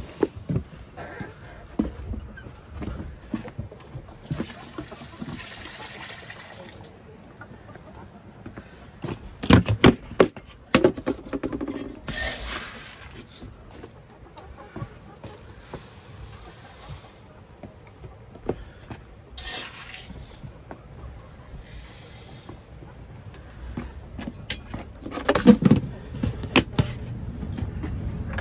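Dry grain rustling as it is scooped by hand and poured between a small bucket and an enamel mug, in several short pours among scattered knocks and clatter of the containers being handled.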